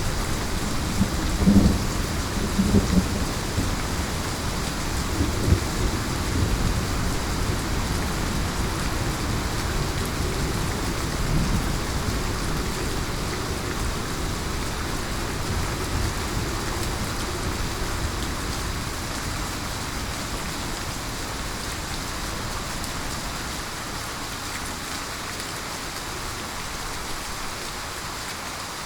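Heavy rain falling steadily, with low rolling thunder rumbling through the first half and fading out.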